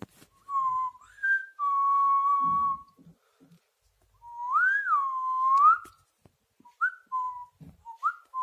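A person whistling a few short notes around one pitch: a long held note about two seconds in, a note that swoops up, dips and rises again around five seconds, and a few quick chirps near the end.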